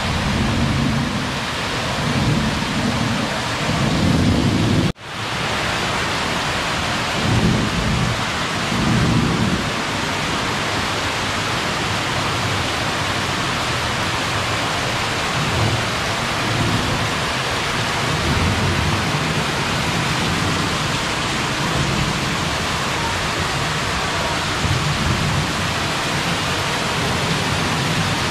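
Artificial waterfall pouring from a rock grotto into a lazy river: a steady, loud rush of falling water, with low rumbling thumps from water striking the microphone, most of them in the first ten seconds. The sound cuts out for an instant about five seconds in.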